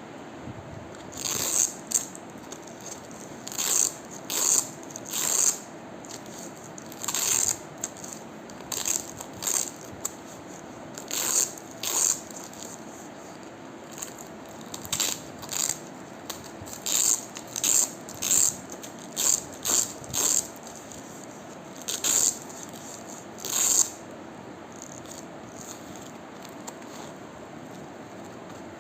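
Crunchy hook-and-loop fastener (Velcro) being pulled apart in about twenty short, irregular rips, each a sharp rasp under a second long, with a steady faint hum between them. The rips stop for the last few seconds.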